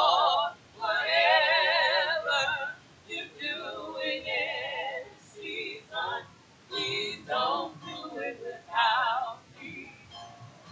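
A woman singing a church song with wide vibrato, in sung phrases separated by short breaks.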